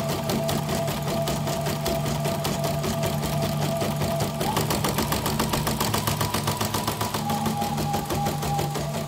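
YOKO computerised embroidery machine stitching, its needle working in a fast, even clicking rhythm over the whine of its motor. The whine jumps higher in pitch about halfway through and settles somewhat lower near the end.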